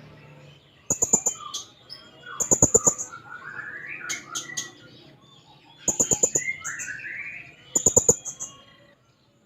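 Hanging parrot (serindit) calling in four bursts of rapid, shrill high notes, with squeaky twittering between them: a bird in full voice, calling out as if for a rival.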